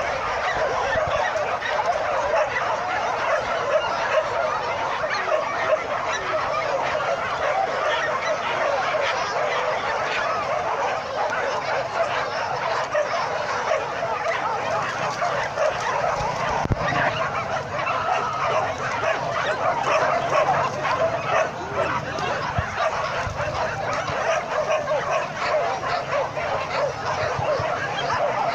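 Many leashed dogs barking together in a dense, unbroken chorus of overlapping short calls.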